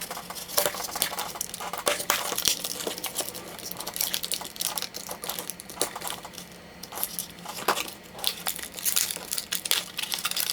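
Product packaging being opened by hand: irregular crinkling, rustling and tearing with many sharp clicks.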